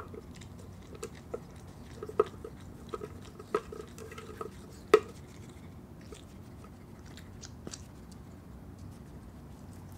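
An opossum chewing and crunching an ice cream drumstick's waffle cone, with sharp crunches scattered through the first half, the loudest about five seconds in, then only a few faint ones.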